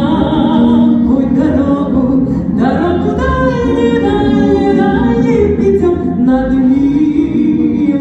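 A woman singing in Russian with instrumental accompaniment, holding long notes that glide from one pitch to the next, amplified through the hall's loudspeakers.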